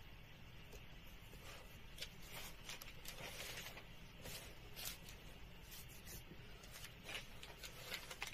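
Faint rustling and brushing of paper, a scattered run of short scrapes from about a second and a half in, as a calligraphy copybook is moved and its pages handled.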